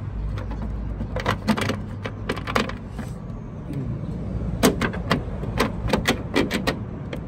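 Sharp clicks and taps of hard plastic trim and clips on a car's boot lid being handled and worked loose by hand. They come in two clusters, one a second or so in and another through the second half, over a steady low rumble.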